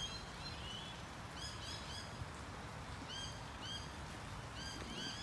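Small birds chirping: short high chirps repeated in quick runs of three or four, several runs in a row, over a faint low rumble of background noise.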